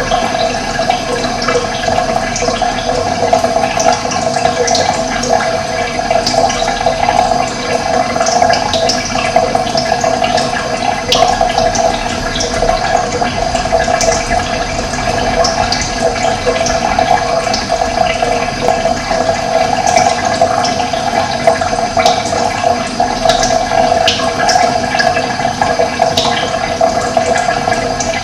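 Running water flowing steadily, an even rushing with no breaks, with short high bird chirps scattered through it.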